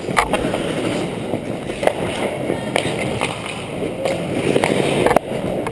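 Ice hockey play: skate blades scraping and carving on the ice, with a handful of sharp clacks of sticks and puck.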